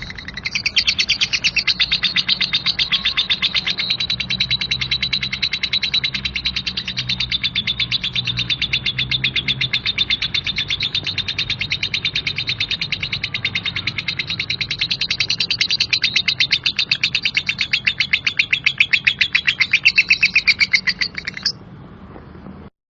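A lovebird's 'ngekek': one long, unbroken chatter of rapid, harsh chirps repeated many times a second, held for about twenty seconds before it cuts off suddenly near the end. A faint low hum lies underneath.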